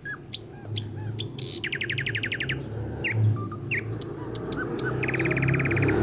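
Birds chirping, with two rapid trills, one about two seconds in and one near the end. Underneath, a low steady hum and the sizzle of fish pieces shallow-frying in oil, which grows louder toward the end.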